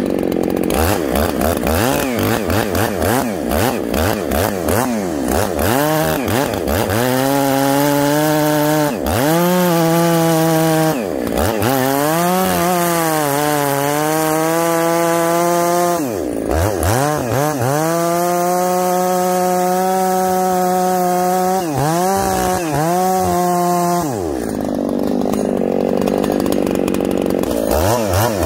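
Ported Husqvarna 288 two-stroke chainsaw cutting a log on a freshly sharpened chain, its rakers at the stock hardwood setting. It revs in a series of short throttle blips, then holds full throttle through longer stretches of cutting with the pitch sagging under load, drops to idle near the end and revs up again.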